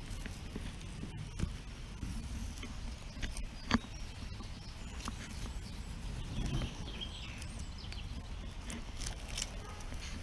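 Masking tape being peeled slowly off gloss paint and sand, faint crackles and ticks over a low background rumble, with one sharp click a little under four seconds in.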